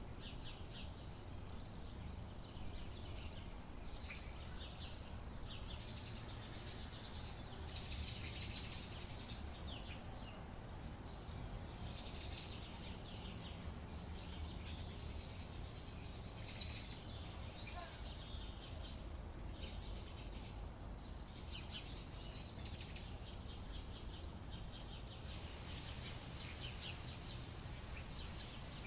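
Wild birds chirping and singing in short, scattered bursts, over a steady low rumble.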